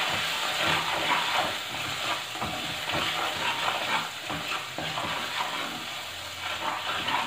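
Ground spices and ginger-garlic paste sizzling in hot oil in a nonstick kadai while a silicone spatula stirs and scrapes them round the pan: the masala being roasted (bhuna).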